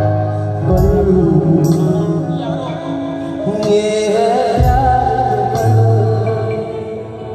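Live band music through a concert sound system: sustained bass notes under a wavering melody line, with cymbal crashes about every one to two seconds.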